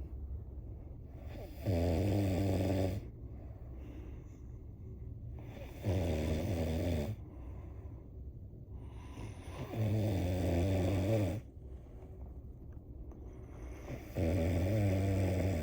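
A sleeping person snoring: four loud, rasping snores on the in-breath, about one every four seconds, with quieter breathing between them.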